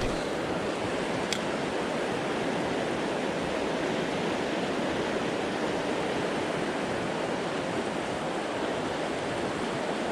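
Fast river rapids rushing steadily, the river running high and swollen from snow and rain. A single faint click about a second in.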